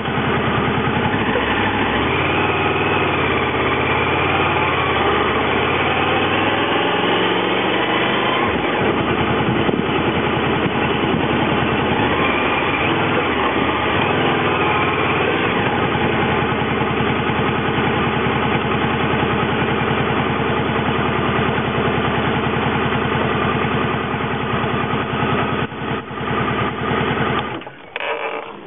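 Honda VFR800 V4 motorcycle engine running under way, heard from the rider's seat; its pitch rises and falls over the first several seconds, then runs steadily. The engine sound cuts off suddenly about a second before the end as the bike stops.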